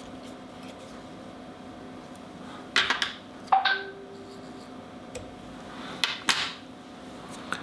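Fly-tying tools and thread being handled at the vise: a few small clicks and rustles, with one sharp click about three and a half seconds in followed by a short tone lasting about a second. A steady low hum underneath.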